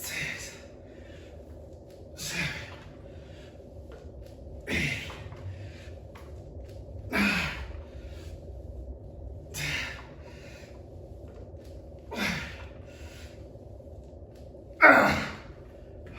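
A man's heavy, rhythmic breaths during squat reps: seven sharp breaths about two and a half seconds apart, the last one the loudest. A steady low hum runs underneath.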